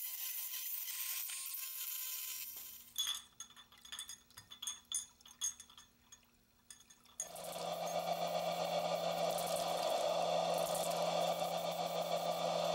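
Rotary tool with a grinding stone whining steadily inside a brass part, stopping about two seconds in; then small brass parts clinking against a glass jar as they are swished in solvent; then, from about seven seconds in, a steady spraying hiss over a low motor hum as etching primer is applied.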